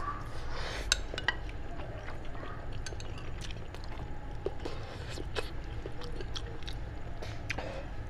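Close-miked eating sounds: scattered wet mouth clicks, chewing and small crackles as meat is pulled off a roasted head by hand and eaten. There is one sharp click about a second in, over a steady low hum.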